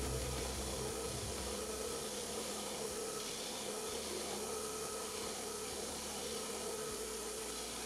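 Belt grinder running with a steady whirring hiss as a wooden knife-handle block is pressed against the sanding belt.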